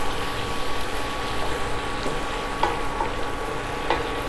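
Chili-tomato sambal sizzling in a frying pan while it is stirred with a wooden spatula, with a few light knocks of the spatula against the pan. The paste is being cooked down until its oil rises to the top.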